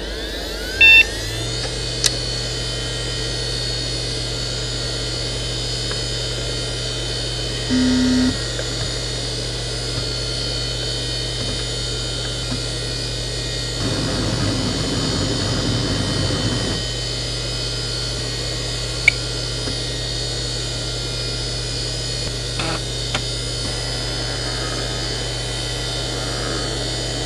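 A Seagate Barracuda 18XL ST318436LW, a 7,200 rpm 3.5-inch SCSI hard drive with ball bearings, three platters and six heads. Its whine climbs in pitch as it winds up at the start, then holds steady. The heads make a busy seek rattle for about three seconds mid-way, with two short electronic beeps and a few light clicks along the way.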